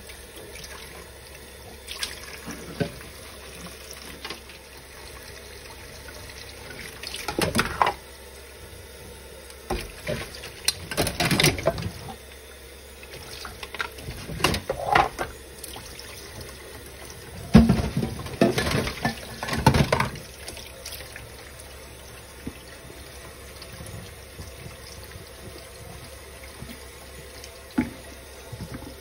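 Kitchen tap running steadily into a stainless steel sink while plastic dishes, a baby bottle and a spoon are rinsed and handled. Water splashing and dishes clattering come in several irregular bursts, the loudest about two-thirds of the way in.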